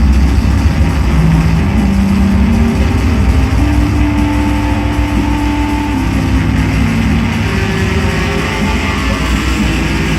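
Loud psychedelic drone-noise music: a heavy, steady low rumble under a wash of hiss-like noise, with held tones that shift to new pitches every second or two.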